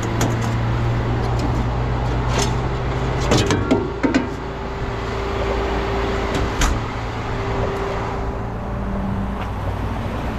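Rollback tow truck's engine running steadily, with a few sharp metallic clanks and knocks about three to four seconds in.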